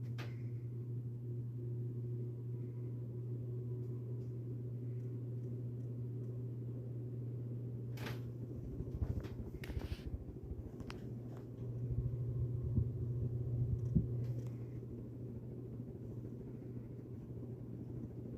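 Ceiling fan motor humming steadily at a low pitch as it starts up, with a few sharp clicks about eight to eleven seconds in and a louder, rougher low rumble from about twelve to fifteen seconds in.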